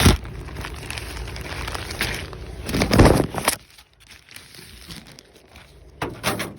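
A parcel being opened by hand: packaging crinkling and tearing in irregular bursts, loudest about three seconds in, with a shorter burst near the end.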